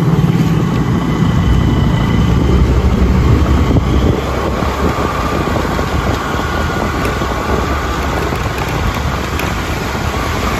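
Motorbike engines running along a street, under a steady low rumble of road and wind noise that is loudest in the first four seconds.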